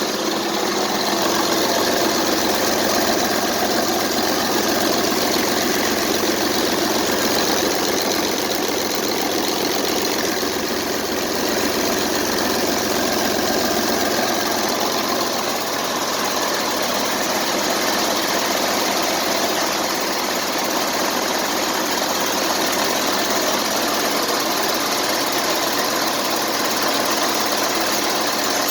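2008 Mercedes OM926LA 7.2-litre diesel engine running steadily on a test run.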